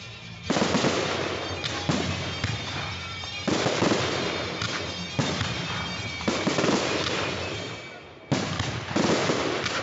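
Aerial firework shells bursting in quick succession: about eight sharp bangs, each trailing off over a second or so before the next.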